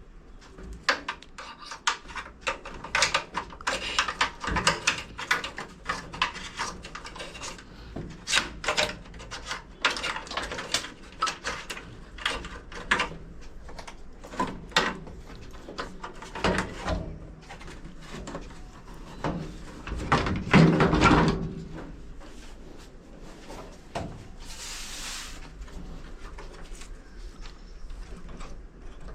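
Hands working on a washing machine's wiring harness: irregular clicks, knocks and rubbing of plastic parts, connectors and wires being handled, with a louder clatter about twenty seconds in and a short hiss near the end.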